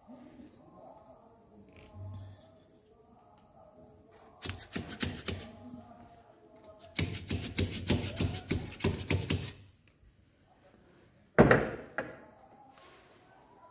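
Metal parts of a motorcycle engine's cylinder head clicking and tapping against the studs and block as the head is fitted: a short run of sharp clicks, then a longer run of rapid clicks, then one loud knock near the end.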